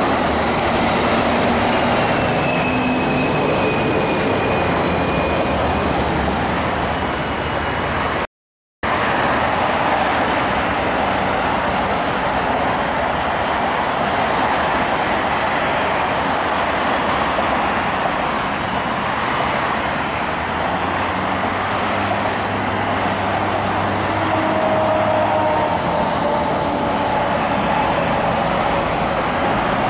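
Steady road traffic noise of cars and trucks driving through, with a heavy truck's engine tones gliding in pitch near the end. The sound cuts out completely for a split second about eight seconds in.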